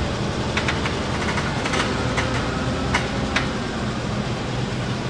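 Forklift engine running steadily, with a few light clicks and rattles over it.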